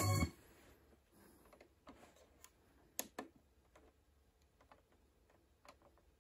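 Music playing through the Audiocore AC9900 car radio cuts off just after the start. A few faint clicks follow as the radio's control knob is worked, with two louder ones close together about three seconds in.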